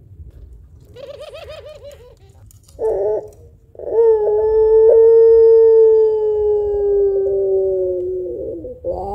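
Puter pelung dove cooing: a short wavering trill about a second in and a brief note near three seconds. Then comes one long, deep coo, the drawn-out 'kuwok', lasting about four and a half seconds and sinking slightly in pitch. Another short note follows near the end.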